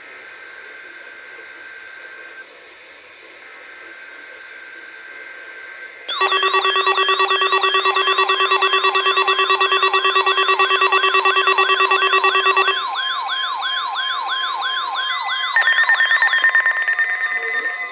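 Weather alert radio alarm going off: a faint steady tone, then about six seconds in a loud electronic warble of rapid repeating chirps, about four a second, over steady tones. Near the end the low tone drops out and a higher tone joins.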